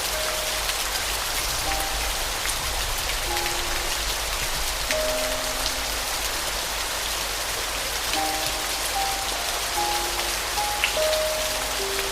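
Steady rain falling, with a slow, sparse piano melody of single soft notes over it.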